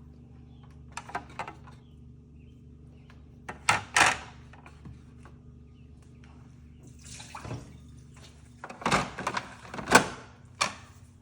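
Espresso machine drip tray being pulled out and emptied: a few plastic knocks and clatters, with a short rush of water. A steady low hum runs underneath.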